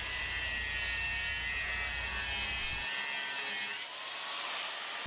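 Black & Decker 4½-inch angle grinder running, a steady high motor whine over hiss that fades near the end.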